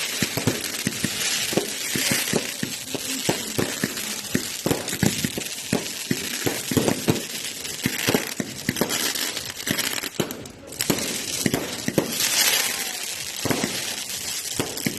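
Fireworks crackling: a rapid, irregular run of small sharp pops with swells of hiss.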